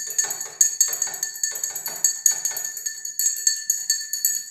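Metal teaspoon stirring in a drinking glass of water, clinking against the sides about three times a second, each strike leaving the glass ringing. The spoon is dissolving boric acid powder into the water.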